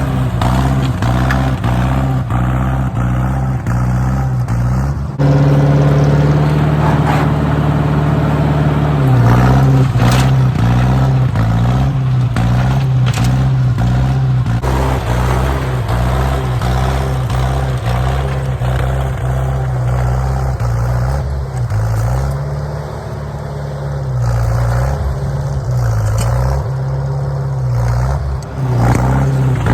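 Massey 50 tractor engine running under load as it pulls a two-furrow plow through hard ground. It gets louder about five seconds in, and its pitch dips and recovers a few times as the load changes.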